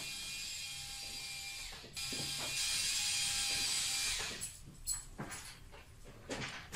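Cordless drill-driver running, driving screws through plasterboard into the ceiling battens: a steady whine for about two seconds, then a second, louder run of about two seconds. After that come a few scattered clicks and knocks.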